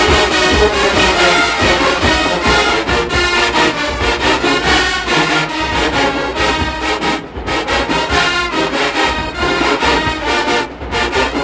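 Brass-heavy HBCU marching band playing, with two brief breaks in the sound, about seven and eleven seconds in.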